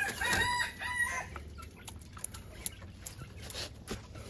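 A rooster crows once in about the first second, followed by a few scattered light taps and clicks.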